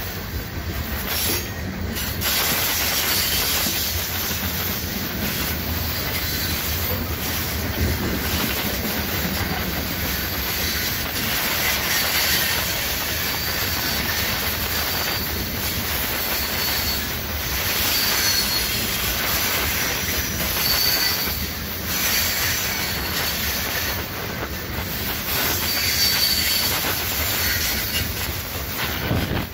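Loaded coal hopper cars of a long freight train rolling steadily past: a continuous clatter and rumble of steel wheels on the rails, with a faint high wheel squeal coming and going.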